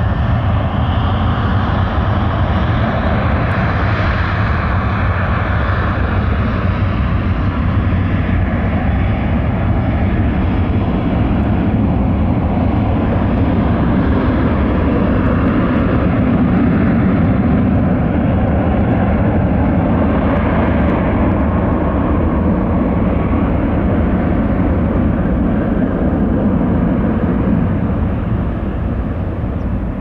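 Boeing 737 twin jet engines at takeoff power through the takeoff roll and lift-off: a loud, steady rumble that swells a little midway and eases slightly near the end.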